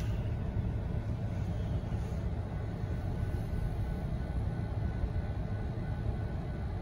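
Steady low vehicle rumble heard from inside a car cabin, with no distinct knocks or rhythm.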